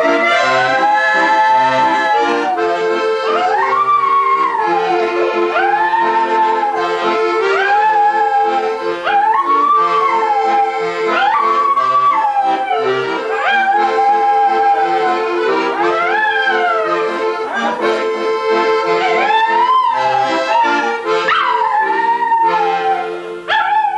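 An accordion playing a rhythmic tune while a dog howls along to it, in long howls that rise, hold and fall, one after another every second or two.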